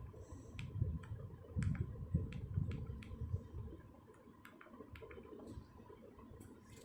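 Irregular sharp plastic clicks with soft low bumps, a phone and its packaging being handled, the bumps dying away about halfway through.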